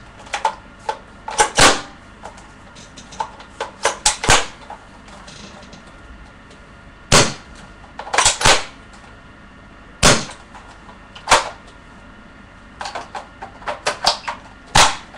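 Sharp plastic clacks and clicks from a spring-powered airsoft L85/SA80 bullpup rifle being handled and worked by hand: about ten loud snaps at uneven intervals, some in quick pairs, with quieter clicks between them.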